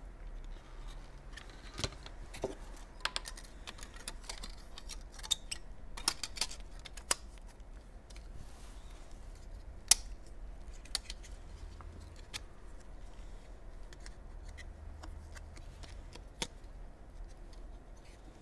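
Scattered light clicks, taps and rattles of a modem's metal chassis and plastic frame being handled and turned over, with one sharper click about ten seconds in.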